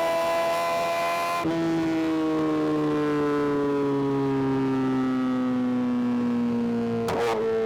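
Suzuki GSX-R 750's inline-four engine running under way. The note drops about 1.5 s in, then slowly falls as the revs wind down, and near the end a short sharp burst comes as the revs jump back up.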